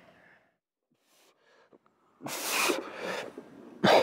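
About two seconds of near silence, then a few heavy, noisy breaths and a sharp knock just before the end.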